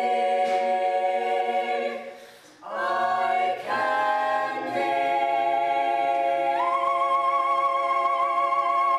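Show choir singing sustained chords in close harmony. The singing breaks briefly about two seconds in, then settles into one long held chord whose top part steps up partway through.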